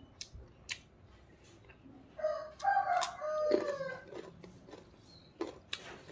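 A rooster crows once, about two seconds in: one drawn-out call of nearly two seconds that drops in pitch at the end. Sharp crunching clicks of raw carrot being bitten and chewed come through on and off around it.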